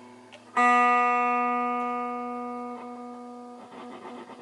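Greco Les Paul-type electric guitar: a single note is picked about half a second in and rings out, fading for about three seconds before it is stopped, leaving faint string and handling noise. The note comes while a pickup that cuts in and out is being checked.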